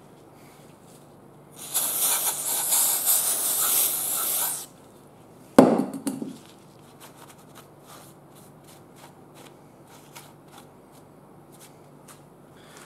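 Aerosol brake parts cleaner sprayed in one steady hiss for about three seconds, cleaning sanding residue off a freshly resurfaced hydrostatic transmission center section. About a second later comes a single sharp knock, with a few faint ticks after it.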